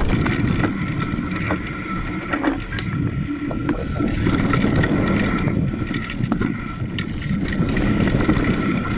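Wind buffeting an action camera's microphone as a mountain bike is ridden over rough ground, with scattered clicks and knocks from the bike rattling and a faint steady high whine underneath.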